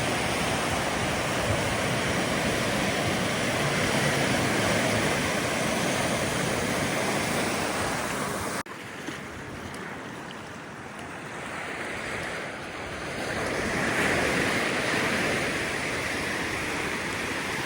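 Ocean surf washing onto a beach, a steady wash of noise. A little over halfway it drops suddenly to a quieter level, then a wave swells up again later on.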